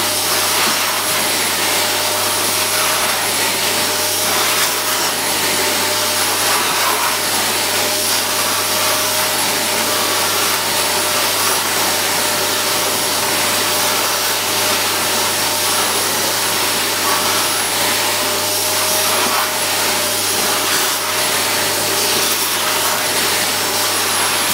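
Canister vacuum cleaner running steadily, with a high whine over its motor noise, as its floor nozzle is drawn over a German shepherd's fur.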